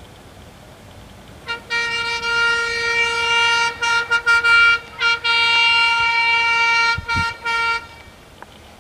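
Government bus horn honking: one steady tone starting about a second and a half in as a long blast, then a quick run of short toots, then another long blast broken twice near the end.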